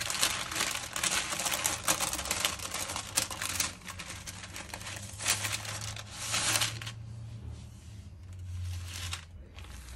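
Sheet of baking parchment rustling and crackling as it is handled and a cake is turned over on it. The noise is busiest for about the first seven seconds, then grows fainter.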